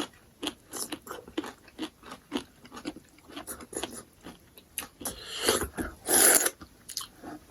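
Close-miked chewing and biting while eating crab: a run of small crunchy clicks, then two longer, louder noisy sounds about five and six seconds in.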